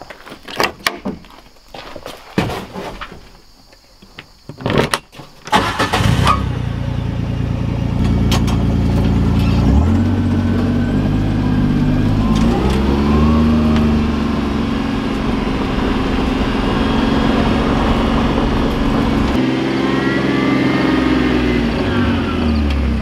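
A few knocks and clicks, then about six seconds in a side-by-side UTV's engine starts and runs on steadily. Its pitch rises and falls twice as it drives over gravel.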